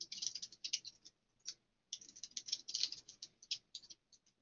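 Typing on a computer keyboard: quick runs of light key clicks, with a pause of about a second between two runs.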